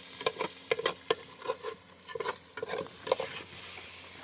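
A quick, uneven run of light clicks and knocks, about a dozen in four seconds, over a faint steady hiss.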